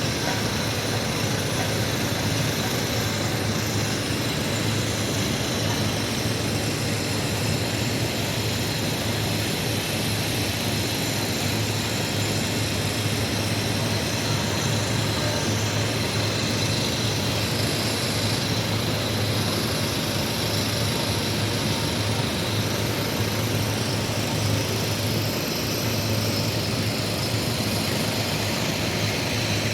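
Steady engine and road noise of a moving vehicle: a constant low hum under an even rushing noise.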